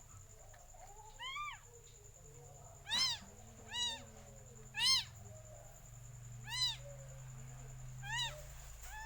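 Cat mewing: six short, high-pitched mews, each rising and falling in pitch, spaced a second or two apart.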